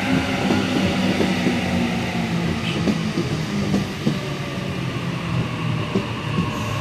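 Sydney Trains Waratah (A set) double-deck electric train rolling along the platform. A steady set of traction-motor tones falls slowly in pitch as the train slows to stop at the station.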